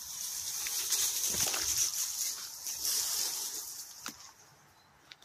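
Rustling and footsteps through leaf litter and shrubs, under a steady high-pitched hiss that fades away about four seconds in.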